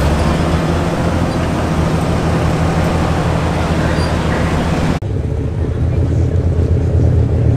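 Light super stock pulling tractors' turbocharged diesel engines idling steadily at the start line, with a hiss over the engine sound. About five seconds in the sound cuts to a second tractor idling with a deeper, heavier low end and less hiss.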